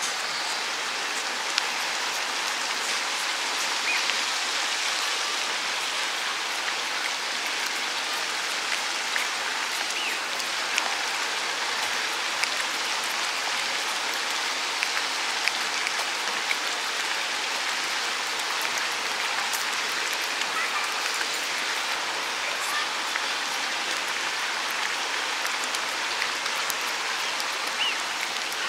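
A cat licking a paste treat from a squeeze tube held at its mouth: close, wet lapping and smacking clicks scattered over a steady hiss.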